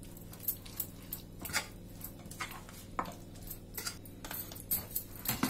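Thick buckwheat-flour and grated-potato batter being stirred in a bowl, with irregular light clicks of the utensil against the bowl.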